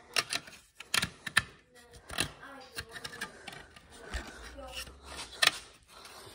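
Scattered light clicks, taps and scrapes of hand tools and fingers working at a cut jet-pump wear ring to pry it out of the pump housing, with a few sharper knocks.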